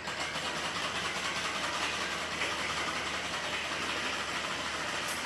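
A small engine running steadily with an even hum and no sharp changes.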